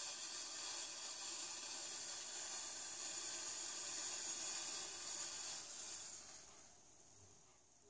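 A person blowing a long, steady breath out through pursed lips, pushed from the diaphragm to empty the lungs completely, as a pursed-lip breathing exercise. The hiss of air fades away about six and a half seconds in.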